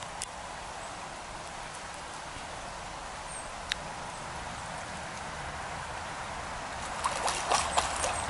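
Shallow stream running steadily over gravel. Near the end comes a short burst of splashing as a spawning brown trout thrashes at the surface over the spawning bed.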